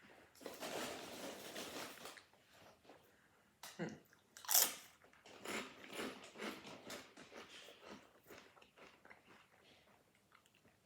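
Crunchy potato chips being bitten and chewed close to the microphone. There is a stretch of crunching in the first two seconds, a loud bite about four and a half seconds in, and then chewing crunches that fade away.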